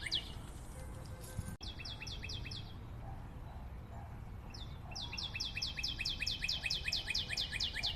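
A fast run of short, high, falling chirps, about six or seven a second. It breaks off for a couple of seconds in the middle and then starts up again.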